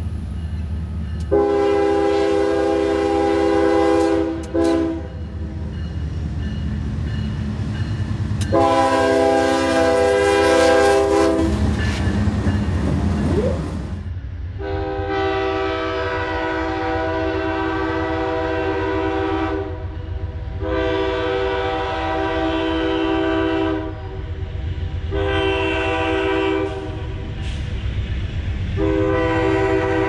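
Diesel locomotive air horns sounding multi-note chords: two long blasts, then a second locomotive approaching and sounding long, long, short, long, the standard grade-crossing signal, over the rumble of the moving train.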